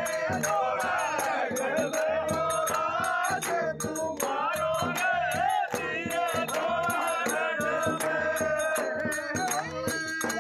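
Background music: a song with a wavering singing voice over a steady shaker-like percussion rhythm.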